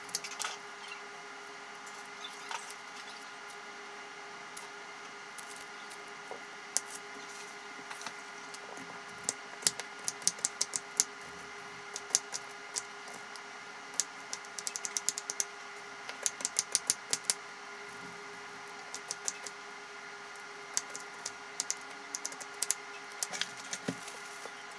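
Kitchen knife chopping an onion on a wooden cutting board: sharp taps of the blade striking the board in quick runs of several strokes, over a faint steady hum.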